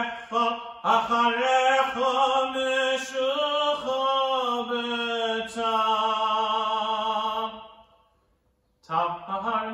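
A cantor singing a Jewish liturgical chant solo and unaccompanied, with long held notes that waver in pitch. The voice fades out about eight seconds in and starts again a moment later.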